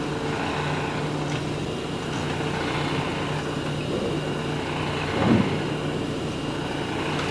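A motor yacht's thrusters run in a check before docking: a whirring propeller motor over the steady drone of the boat's engines, with one louder surge about five seconds in.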